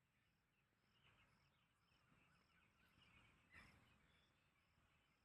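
Near silence outdoors, with faint scattered bird chirps, a faint high tick repeating about twice a second, and one brief click about three and a half seconds in.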